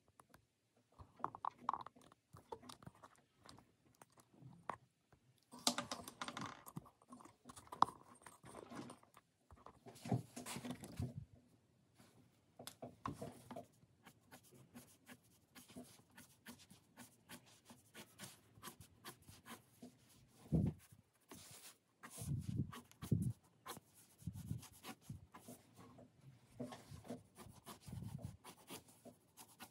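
Fine-tip ink pen scratching across paper in short, irregular strokes as lines are drawn, broken by a few dull thumps about two-thirds of the way in.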